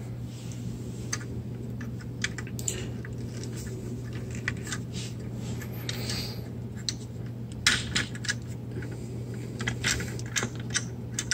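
Hard plastic toy parts clicking and rattling as plastic katana swords are worked loose from a Transformers action figure's hands, with a cluster of clicks about eight seconds in and more toward the end. A steady low hum runs underneath.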